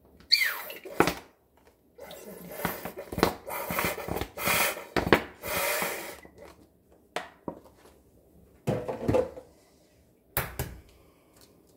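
Cooking oil poured from a plastic bottle into a wide frying pan, splashing in uneven spurts for several seconds. After that come a few short knocks and clicks as the bottle is handled.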